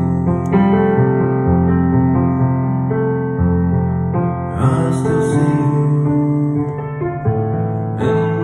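Keyboard playing slow, sustained chords in an instrumental passage of a ballad, with no voice. A soft hiss swells in about halfway through and again near the end.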